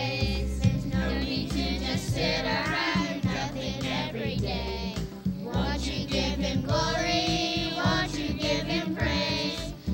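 A group of voices, children's among them, singing a song together over instrumental backing with a steady bass line.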